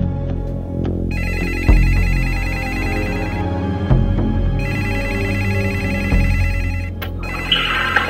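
A telephone ringing twice, each ring a rapid warbling trill a little over two seconds long. Under it, music plays with low held notes and a deep beat about every two seconds.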